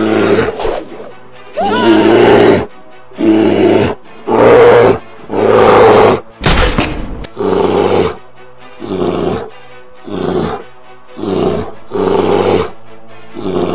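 Bear roaring over and over, about a dozen short roars at roughly one a second, the later ones a little quieter, over background music.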